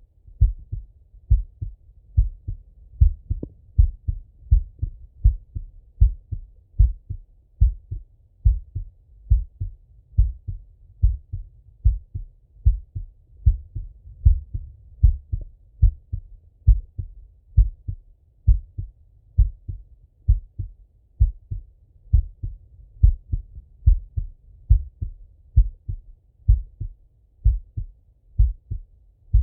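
A man's heartbeat heard through a Littmann stethoscope: a steady, slow rhythm of low, muffled lub-dub double thumps, just under one beat a second.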